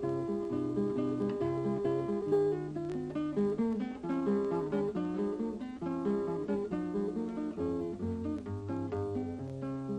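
Instrumental music on acoustic guitar: a quick plucked melody over moving bass notes, played continuously.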